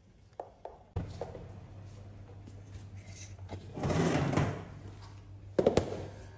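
Handling sounds of a metal office cabinet: light clicks in the first second, a longer scraping rustle about four seconds in, and a sharp double knock near the end. A low steady hum starts about a second in and runs underneath.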